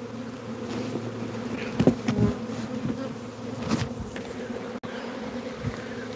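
A honeybee swarm buzzing: a steady, dense drone of many bees. A few brief knocks stand out about two seconds in and again just before four seconds.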